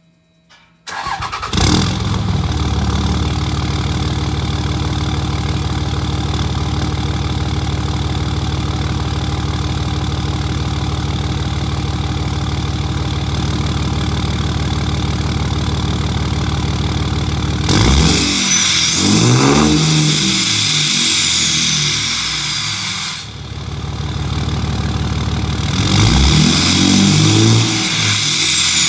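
2006 Dodge Ram 2500's 5.9 Cummins inline-six turbodiesel, breathing through a 4-inch straight-pipe exhaust, starts warm about a second in and idles steadily. Later it is revved twice, first with the exhaust brake on and then with it off, each rev with a high whistle falling away as the revs drop.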